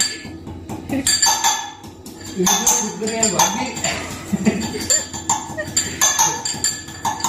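Metal pestle pounding ginger in a small steel mortar: a run of sharp, ringing metallic clinks, several a second and unevenly spaced.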